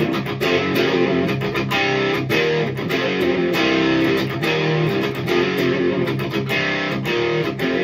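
An electric guitar tuned to drop C with Seymour Duncan pickups, played through the overdrive channel of a Hiwatt Hi-5, a 5-watt all-tube amp with one EL84, into Celestion Vintage 30 speakers. It plays high-gain distorted metal riffing, fast picked chugs alternating with ringing chords, at a steady loud level.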